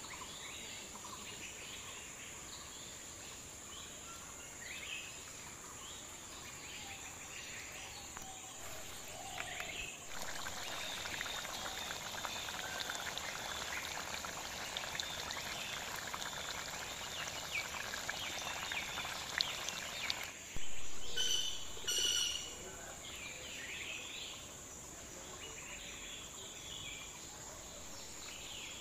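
Steady insect buzz with birds chirping. From about ten seconds in, fish curry boils in an iron kadai over a wood fire for about ten seconds, a bubbling crackle of many small pops. Then come two loud, short pitched calls about a second apart.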